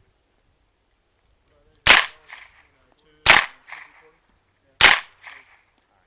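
Three single shots from a 9mm Heckler & Koch MP5K-PDW suppressed with a Gemtech MK-9K, about a second and a half apart, each followed by a fainter echo.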